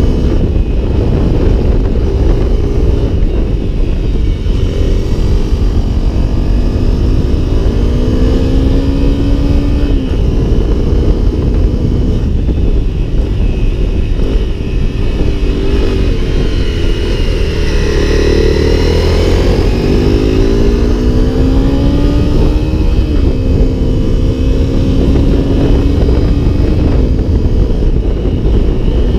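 Honda CRF250L's single-cylinder four-stroke engine, heard from the rider's seat while riding on the road: its pitch climbs as it pulls through the gears and drops back at each shift, several times over. Heavy wind noise on the helmet microphone runs under it.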